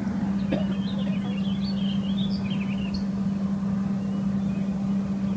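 A steady low motor-like drone holding one pitch, with small birds chirping over it in the first few seconds.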